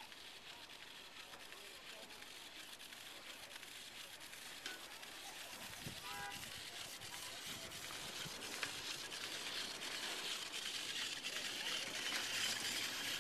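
Riding a chairlift: a steady hiss that grows louder toward the end, with a short rattling whine about six seconds in as the chair passes a lift tower's sheaves.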